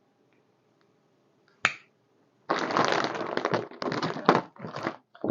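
A heavy plastic ration-pack bag being opened: one sharp snap about a second and a half in, then loud crinkling and crackling of the plastic in several bursts.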